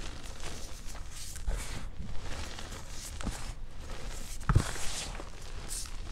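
Hands squeezing and crumbling powdery gym chalk, a continuous dry crunching and rustling. A few dull thumps fall among it, the loudest about four and a half seconds in.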